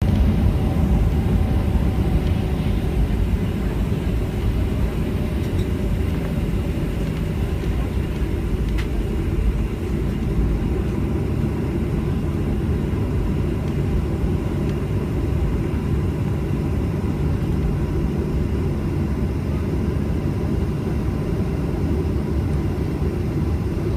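Passenger airliner heard from inside the cabin during takeoff: a steady low rumble of engines and airflow, slightly louder in the first few seconds.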